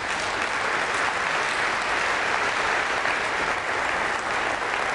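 Large audience of conference delegates applauding steadily in a big hall.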